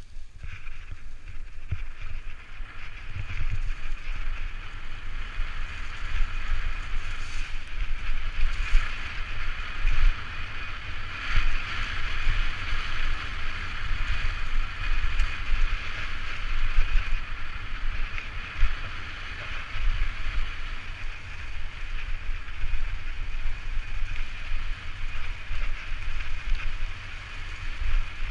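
Propain Tyee enduro mountain bike ridden fast downhill over a leaf-strewn dirt trail: tyres rolling over leaves and dirt, with the bike rattling and wind buffeting the helmet-mounted microphone. The sound grows louder over the first few seconds, then holds steady.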